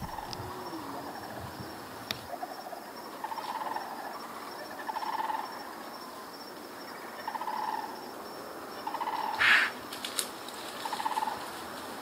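Short, rapidly pulsed animal calls, repeating irregularly every second or two, with one louder, higher-pitched call about nine and a half seconds in.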